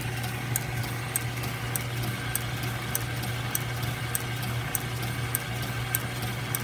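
South Bend 9A lathe running while an end mill in its spindle cuts a brass fitting held in the milling attachment. A steady motor hum with a light tick repeating a little under twice a second.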